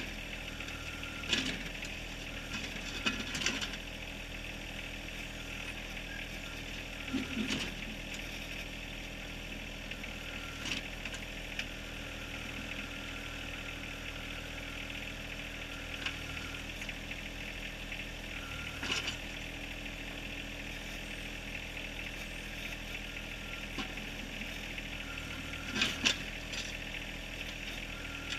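John Deere 1023R backhoe's diesel engine running steadily under hydraulic load, with occasional sharp knocks and clanks of the bucket striking rock, the loudest near the end.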